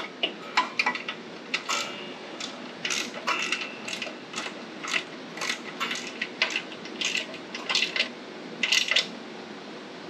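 A hand wrench working a minibike's rear engine-mount bolt tight: a run of irregular metallic clicks and clinks, about two a second, some with a brief ring.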